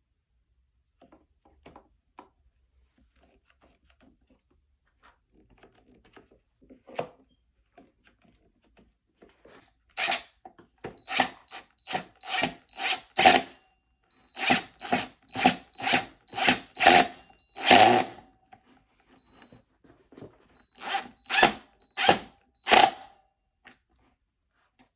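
Power drill run in short pulses of the trigger: about eighteen brief whirs in three quick runs, beginning about ten seconds in, after a few faint knocks of handling.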